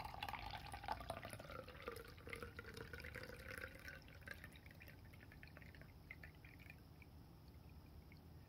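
Canned milky melon latte being poured from a can into a glass, the liquid splashing and gurgling into the filling glass with a glugging note that drops in pitch over the first couple of seconds. The pour gets quieter after about four seconds as the stream thins.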